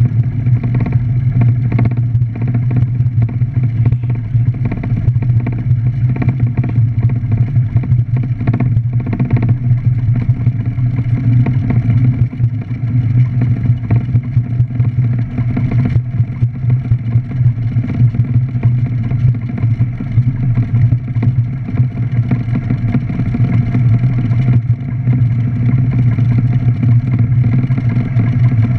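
Single-engine light aircraft's piston engine running steadily, heard from inside the cockpit on the landing approach.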